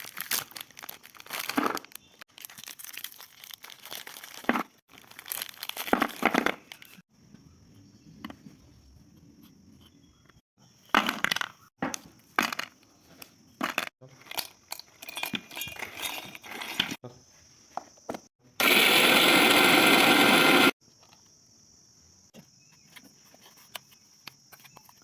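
Food-preparation handling sounds: crinkling and tearing of packaging, with knocks and clinks of utensils and dishes. About three quarters of the way through, a loud steady noise lasts about two seconds and is the loudest sound.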